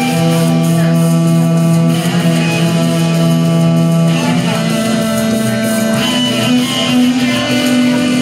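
Live blues-rock music with no singing: long, held keyboard chords that change about halfway through.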